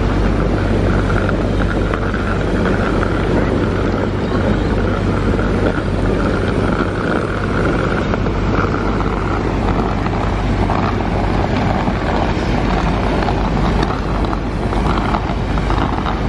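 Steady, loud running of airport ground machinery: a low hum under a rushing noise, with a faint high whine through the first half.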